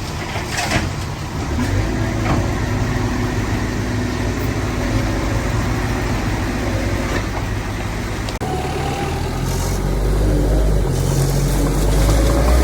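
Heavy diesel earthmoving machinery, a bulldozer or dump truck, with its engine running steadily under work. About eight seconds in the sound breaks off abruptly and comes back louder and deeper.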